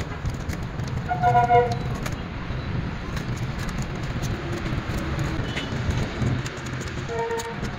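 Steady low rumble of road traffic, with a vehicle horn sounding briefly about a second in and again near the end. Light clicks of reed canes and nylon thread being handled run over it.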